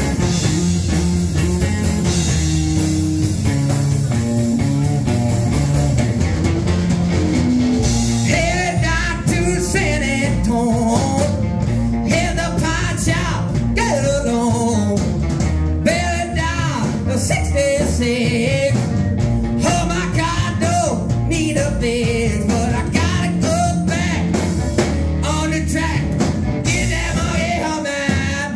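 Live rock and roll trio playing: hollow-body electric guitar, upright bass and drum kit. A man starts singing about eight seconds in, over the band.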